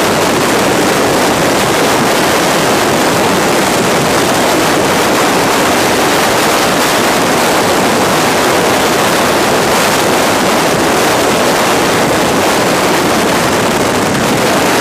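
Loud, steady rush of freefall wind blasting over a skydiving camera flyer's helmet-mounted camera microphone.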